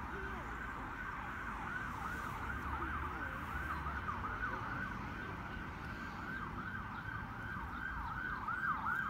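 Emergency vehicle siren on a fast yelp, its pitch sweeping up and down about three times a second.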